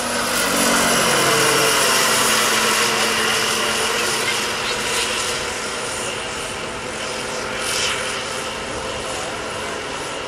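Large radio-controlled scale model Aérospatiale SA-319 Alouette III helicopter with a model turbine engine flying overhead. Its turbine and rotor make a steady whine, loudest a second or two in, and the pitch falls as it passes.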